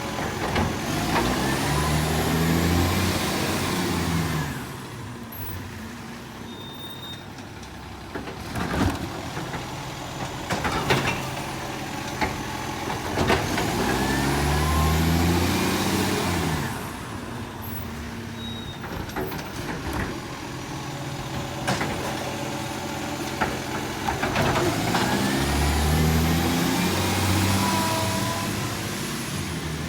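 Garbage truck engine revving up and back down three times, roughly every twelve seconds, each rev lasting about four seconds, typical of the engine driving the bin-lifting hydraulics. It idles between the revs, with a few sharp knocks and air-brake hisses.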